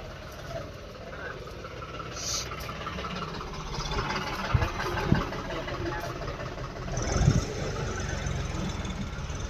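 Diesel farm tractor engines running at low speed in a queue, a steady low rumble. Several louder thumps come about halfway through and again later.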